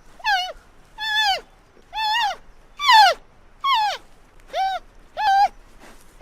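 An animal calling repeatedly: about seven short, clear calls, roughly one a second, each ending with a drop in pitch.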